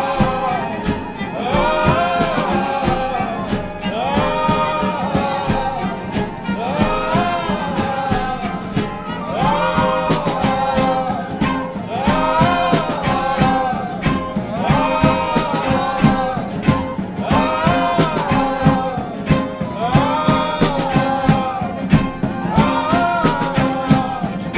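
Live acoustic folk band: several voices sing a repeated arching phrase together over strummed acoustic guitars, fiddle, cello and double bass.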